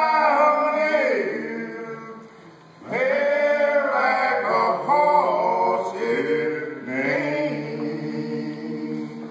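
Men singing a menhaden fishermen's net-hauling shanty a cappella: one phrase fades about two seconds in, then the next phrase starts about three seconds in and ends on low held notes.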